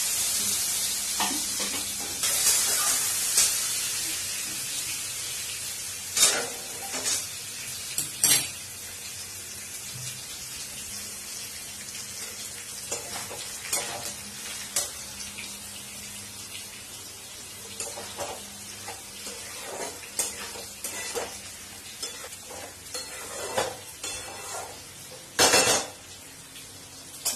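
Chopped onions frying in hot oil in a steel wok. The sizzle is loudest at first, right after they go in, and settles into a steadier fry. A metal spatula scrapes and clinks against the wok now and then, with a louder clatter near the end.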